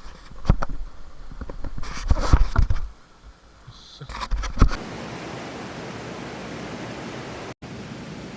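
Irregular knocks and rustles of handling close to the microphone, then from about halfway a steady rushing noise that cuts out for an instant near the end.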